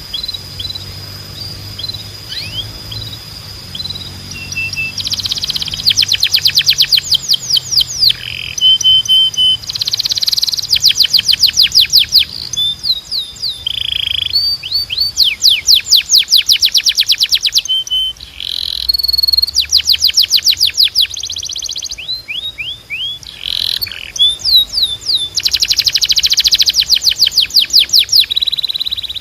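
Timbrado canary singing a long, loud song of rapid trills and rolls, with short gliding whistles and held notes between the phrases.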